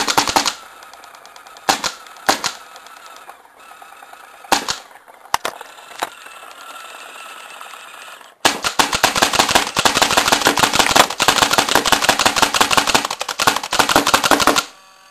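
2k2 Autococker paintball marker dry-fired on air with no paint: a few single shots and short clusters, then a rapid string of shots starting about eight and a half seconds in and lasting about six seconds.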